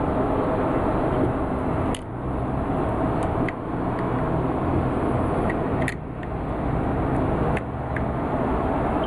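Steady loud rumbling noise with a few short clicks and brief dips in level.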